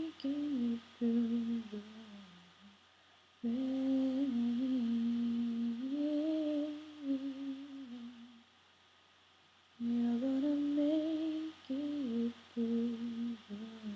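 A single voice humming a slow melody without accompaniment, in three long phrases with short breaks between them.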